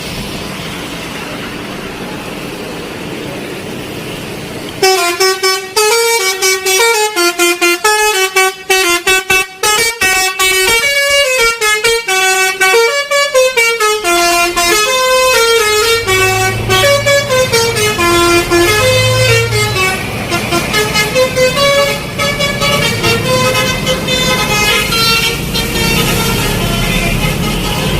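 Indonesian bus 'telolet' musical horn playing a tune of stepped notes, starting about five seconds in after a steady background noise. At first the notes come in quick stuttering pulses, then in smoother runs, with a low engine rumble beneath in the second half.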